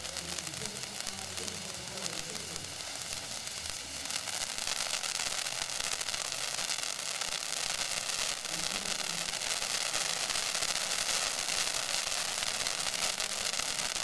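Ground firework on a pole spraying white sparks, a steady sizzling hiss with fine crackle that grows louder about four seconds in.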